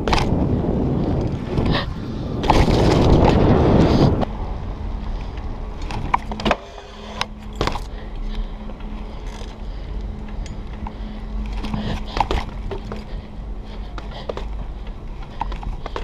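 BMX bike riding over concrete: tyre rolling noise and wind buffeting the chest-mounted camera, loudest for the first four seconds, then quieter with scattered clicks and knocks from the bike.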